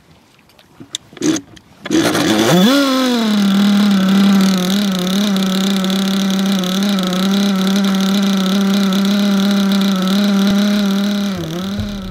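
O.S. 21VF-R ABC nitro glow engine of a model boat with a tuned pipe, starting up: a short sputter about a second in, then it catches about two seconds in, rises briefly in pitch and runs steadily at one speed with small wavers, dipping just before it stops near the end.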